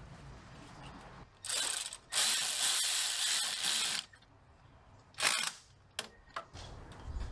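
Cordless ratchet running in bursts while driving in the York air compressor's mounting bolts: a short run, then a longer one of about two seconds, and another brief burst about five seconds in, followed by a couple of light clicks.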